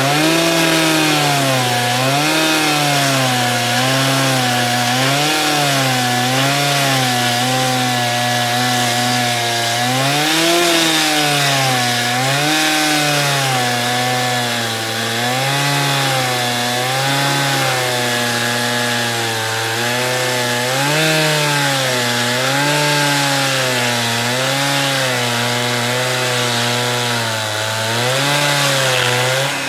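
Stihl chainsaw mounted in a chainsaw mill's carriage, cutting lengthwise through a log; the engine runs loud and steady, its pitch dipping and recovering every second or so as the chain loads up in the cut.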